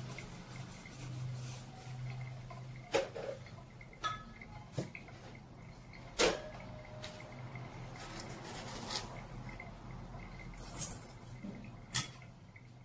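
Sharp clinks and knocks of seasoning containers and utensils against a stainless steel mixing bowl as seasonings are added, about six strikes spread out, one with a brief metallic ring. A low steady hum sits underneath.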